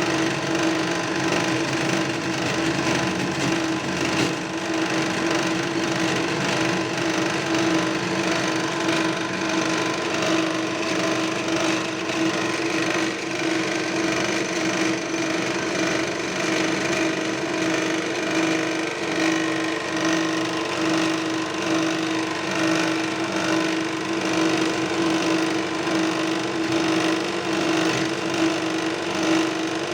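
Power tool running steadily with a constant hum and a rasping cutting noise, as in machining a piston.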